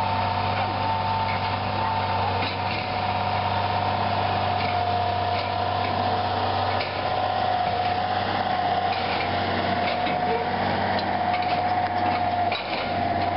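Tractor engine running steadily as it tows a Bale Baron bale bundler picking up small square bales, with a steady whine and scattered knocks and clatter from the machinery.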